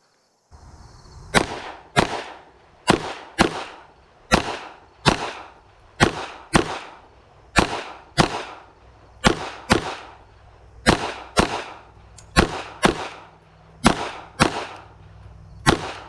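Smith & Wesson M&P 2.0 22 Magnum pistol firing a rapid string of about nineteen .22 WMR shots, mostly in pairs about half a second apart with a short gap between pairs, each crack ringing briefly. The pistol cycles every round without a stoppage.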